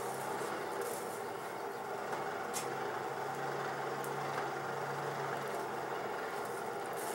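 Hand-cranked forge blower whirring as it blows air into the coal fire to heat the steel, with a steady rushing noise. Its low hum comes in about two and a half seconds in and fades after about five seconds. A single light metallic clink comes about two and a half seconds in.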